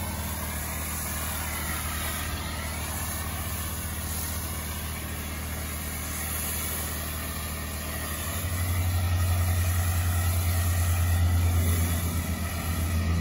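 Pressure washer running steadily, spraying soap foam through a foam cannon: a hiss of spray over a low motor hum, the hum growing louder about eight seconds in.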